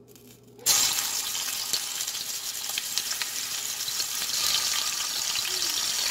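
Marinated chicken wings sizzling as they go into hot oil in a frying pan: the sizzle starts suddenly under a second in, when the first piece hits the oil, and grows a little louder as a second piece goes in.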